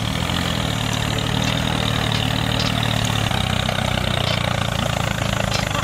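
Tractor engine running steadily with a low, even hum.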